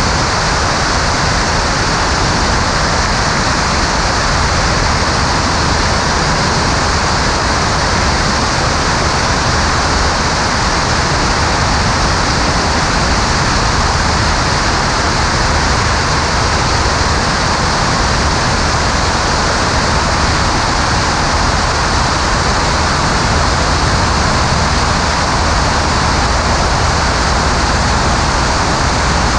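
Steady rush of wind over a camera mounted outside on the wing strut, over the steady drone of a Maule M5-180C's 180-horsepower engine and propeller in level cruise flight.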